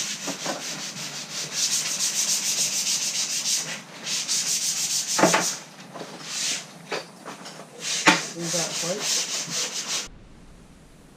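Hand-sanding wood with quick, even back-and-forth strokes, broken by a few short pauses and clicks, stopping abruptly near the end.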